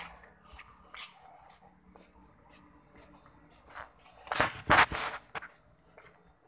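Footsteps on a road, with light clicks and rustles from a handheld phone, and a loud noisy burst lasting about a second, about four seconds in.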